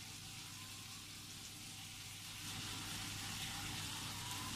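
Bacon and broccoli sizzling faintly in oil in a frying pan, a steady hiss that gets a little louder about two and a half seconds in.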